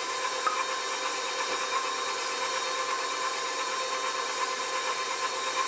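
KitchenAid stand mixer running at a steady speed, its motor giving a continuous whine while the flat beater creams butter and sugar in the stainless steel bowl.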